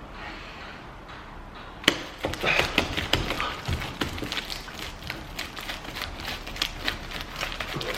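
Lumpy homemade slime being kneaded and worked by hand: irregular sticky clicks and crackles, starting about two seconds in with a sharp snap. The slime has gone lumpy and is not coming together.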